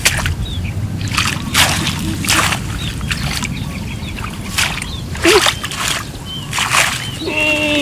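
Water splashing in a series of short splashes, roughly one a second, with small birds chirping and a steady low rumble underneath.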